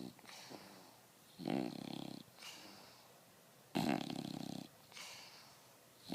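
English bulldog puppy snoring in its sleep: a loud snore about every two and a half seconds, with a softer hissing breath between them.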